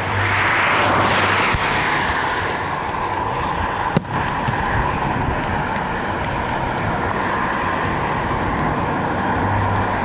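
Steady rumble and hiss of car road and wind noise, swelling briefly in the first couple of seconds. One sharp click comes about four seconds in.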